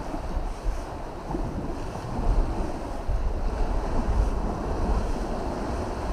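Wind buffeting the microphone in uneven gusts, a low rumble, over a steady wash of sea.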